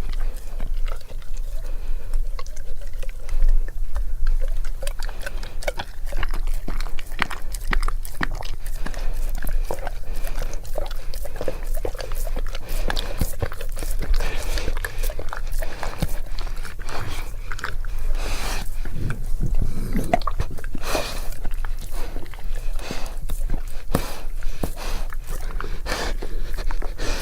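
A Bullmastiff's wet mouth sounds, close up: a dense, irregular run of clicks and smacks from chewing and tongue.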